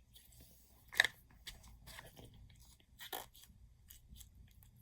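Slime being pressed and worked by hand, giving off scattered crackling clicks and squelches, the sharpest about a second in and another cluster about three seconds in.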